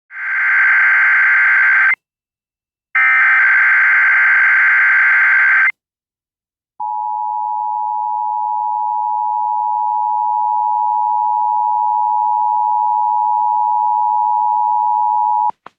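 Emergency Alert System signal announcing a tsunami warning. It opens with two bursts of shrill digital SAME header data, each two to three seconds long. After a second's pause comes the steady two-tone attention signal, which lasts about nine seconds and then cuts off with a click.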